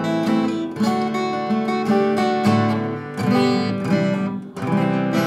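Tyma V-3 Plume electro-acoustic guitar with a spruce top being strummed through a short chord progression, a new chord about every second. Its sound is balanced, with clear, readable notes.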